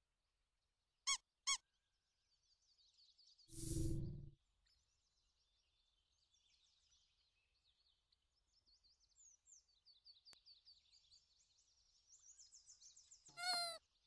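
Cartoon sound effects: two quick squeaks, a loud rush of noise lasting under a second, and near the end a short wavering tone, over faint bird chirping.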